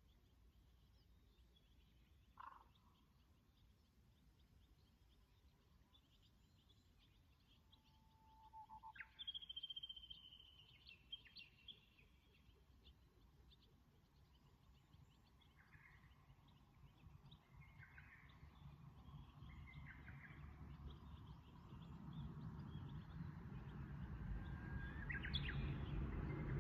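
Wild birds singing in the quiet countryside: a single call, then a louder song phrase of a held low note followed by a higher flourish, then three short calls. A low rumble builds steadily over the last few seconds.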